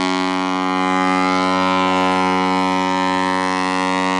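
Ship's horn of the container ship EVER ALP sounding one long, steady, deep blast rich in overtones, given as a farewell salute on leaving port.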